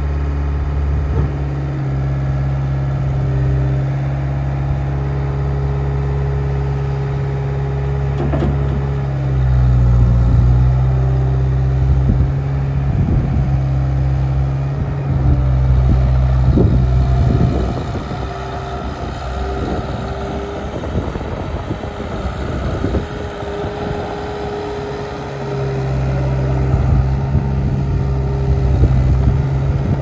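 Cat 289C compact track loader's diesel engine running steadily. Its level rises and falls a few times, and knocks and rattles come through in the middle.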